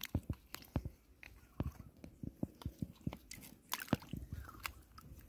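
Freshwater mussel shells clicking and scraping against each other as they are handled in shallow muddy water. The clicks come in a quick, irregular run, mixed with small splashes.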